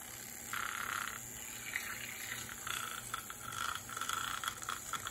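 Handheld battery-powered milk frother churning milk and flan powder in a glass measuring cup, with a gurgling whir, not very loud. It starts about half a second in, stops briefly, then runs on in uneven spurts.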